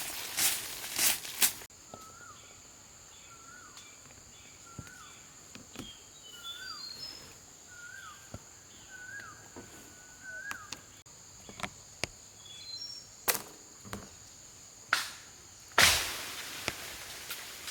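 A wild bird repeats a short, hooked call about once a second, over a steady high-pitched whine. A quick run of sharp rustling strikes opens the stretch, and a few single sharp knocks come near the end.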